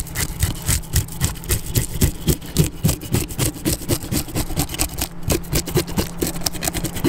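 Scales being scraped off a fresh whitefish in quick repeated strokes, several a second, working the fish clean before it is cooked skin-on.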